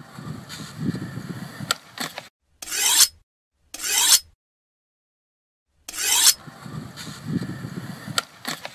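Skateboard wheels rolling on concrete with a few sharp clacks of the board. Short rasping bursts come as the board slides along a concrete ledge. The sound cuts to dead silence between clips, longest for about a second and a half in the middle.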